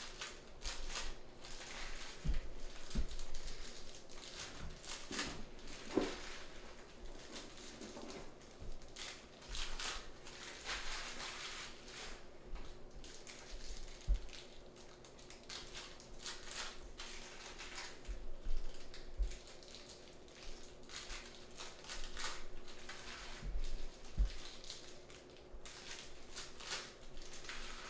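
Panini Prizm trading card packs and cards being handled: irregular crinkling and rustling of pack wrappers and cards, with a few soft low thumps.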